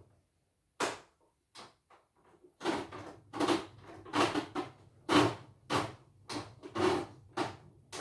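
Handwheel of a home embroidery machine turned by hand: a click, then repeated rough scraping clunks about twice a second as the mechanism goes round. This grating, stiff rotation is the fault being diagnosed.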